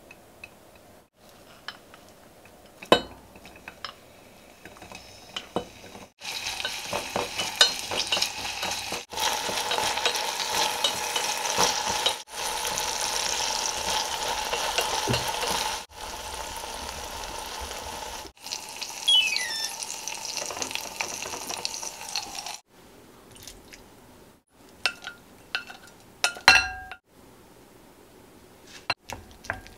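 Sliced green onion sizzling and crackling as it fries in a few spoonfuls of hot oil in a small enamel pot, stirred with wooden chopsticks: scallion oil being made. The sizzle starts about six seconds in and stops at about 22 seconds. A few clinks come before it, and clinks and a knock near the end.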